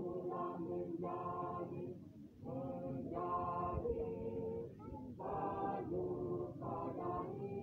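A masamper group, the Sangihe tradition of unaccompanied group singing, singing a cappella in several voices. The song comes in short phrases with brief breaks between them.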